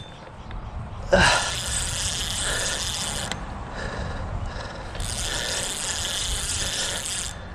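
Spinning reel ratcheting and whirring under load in two stretches of about two seconds each, with a striped bass on the line.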